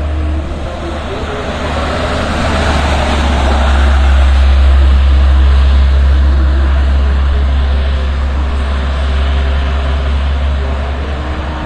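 Diesel box truck driving past on the highway: engine and tyre noise with a heavy low rumble, growing to a peak about four to five seconds in, then fading as the truck moves away.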